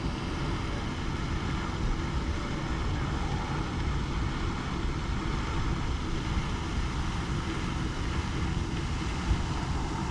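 Steady engine and road noise of a truck driving along.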